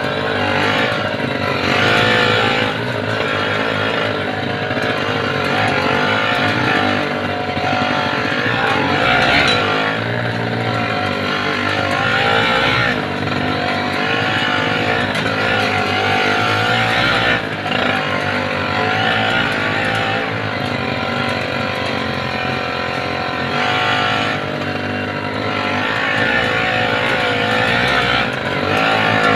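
Yamaha 80cc motorcycle engine running loud under load, its pitch rising and falling as it is revved.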